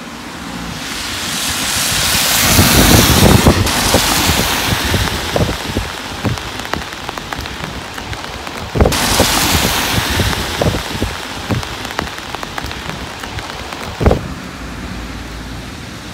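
Steady rain on a wet street with scattered drop ticks, and the tyres of passing cars hissing on the wet road: one swells up and fades over the first few seconds, another starts suddenly about nine seconds in and fades away. A single sharp knock near the end.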